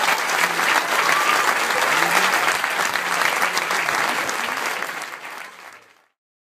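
Audience applauding, a dense steady clapping that fades away about five seconds in and ends in silence.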